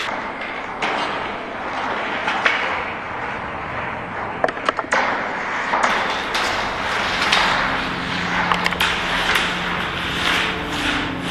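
A kinetic aluminium-sheet sound sculpture in motion, giving a noisy rushing sound that swells and fades about once a second, with a few sharp clicks near the middle. A low steady hum of several tones joins about two-thirds of the way through.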